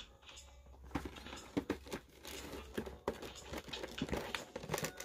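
Cardboard action-figure box being handled and turned over in the hands: scattered rustles, crinkles and light taps and scrapes of the packaging, picking up after the first second or so.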